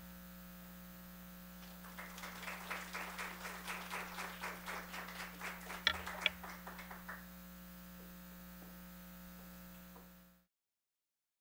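Audience applauding for about five seconds, fairly faint, over a steady electrical mains hum.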